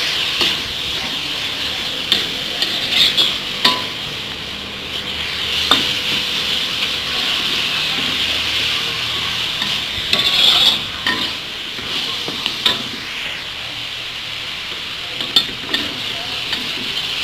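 Beef and shredded root vegetable sizzling steadily in a hot wok while a spatula stirs and tosses them, with sharp scrapes and clatters of the spatula against the wok every few seconds.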